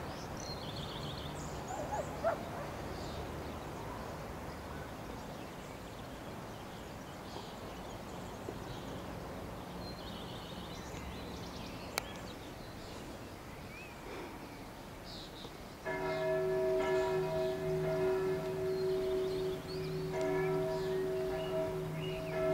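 A church bell starts ringing suddenly about two-thirds of the way in and keeps ringing, a steady deep tone with several higher overtones that swells again with fresh strokes. Before it there is only faint open-air ambience with short high chirps and one sharp click.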